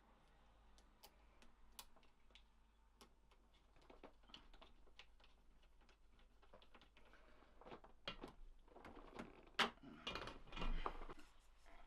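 Light scattered clicks and taps of a plastic laptop case being handled and screwed back together with a small screwdriver. The clicks get busier and louder toward the end, with one sharper click near the end.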